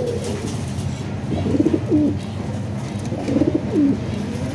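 Domestic pigeons cooing: repeated low coos that rise and fall in pitch, clearest about a second and a half in and again after three seconds.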